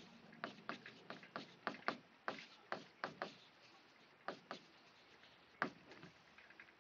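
Marker pen tip tapping and scraping on a writing board as letters are written: a string of faint, short clicks, two or three a second, with a couple of brief pauses.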